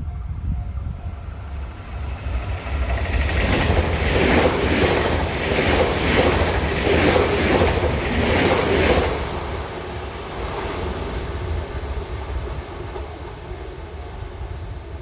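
JR 383 series eight-car limited express electric train passing at speed: wheels running on rail with a rhythmic clatter of wheelsets over rail joints, about two strokes a second. The passing is loudest from about three to nine seconds in, then drops to a quieter, steady running noise.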